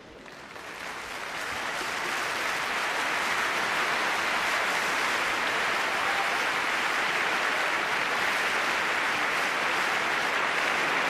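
Opera house audience applauding, swelling over the first two seconds and then holding steady.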